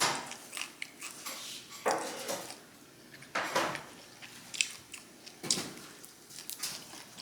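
Close-miked chewing and biting of food, with wet mouth clicks and smacks and louder bursts about every one and a half to two seconds.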